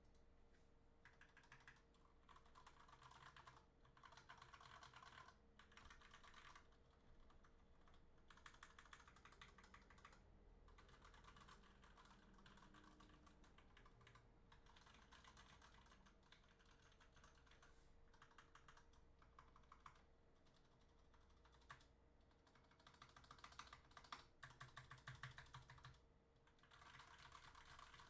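Faint, rapid typing on a custom mechanical gaming keyboard with unlubricated switches and stabilizers, keys clattering in runs of a second or two with short pauses between: the keys being tested to check that they all work.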